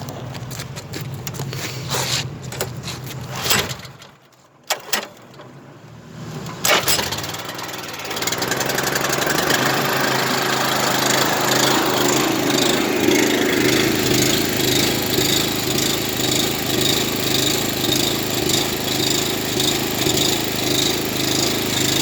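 Gas pressure washer's small engine being started: a few sharp knocks and clatter, then about eight seconds in it catches and runs steadily and loudly.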